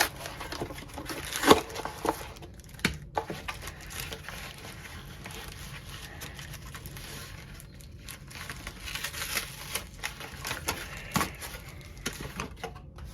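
Unboxing noises: packaging being handled and pulled open, with crinkling and rustling and a few sharp knocks as parts are taken out.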